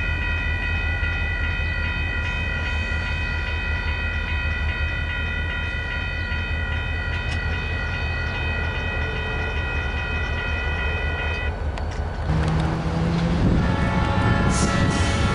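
Grade-crossing warning bell ringing steadily over a low rumble. The bell stops about eleven seconds in as the crossing gates go up, ending the warning. Near the end a train horn sounds.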